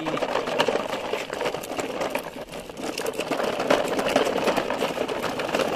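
Large plastic toy dump truck rolling over gravel and paving, its plastic wheels crunching and the load of small plastic toy trucks in its bed rattling in a dense, continuous clatter.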